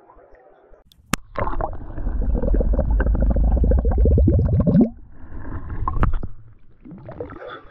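Glass bottle held underwater and glugging as it fills, air bubbling out of its neck in a rapid run of pops that rises in pitch just before it stops, about five seconds in. Heard from below the surface, with a sharp click about a second in and another near six seconds.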